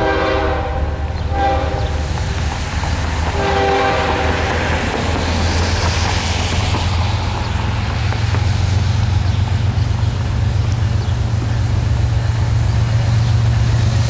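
Diesel freight locomotive horn sounding three blasts in the first five seconds, the last the longest. It is followed by the steady rumble of Norfolk Southern diesel locomotives growing louder as the train approaches.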